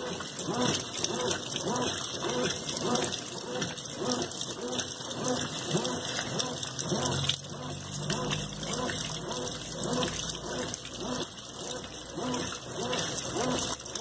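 Consul Maré CWL10 top-loading washing machine agitating a load of cloths while water pours into the tub: steady irregular sloshing and splashing of the churning water with the stream of the fill. A low hum joins for a few seconds in the middle.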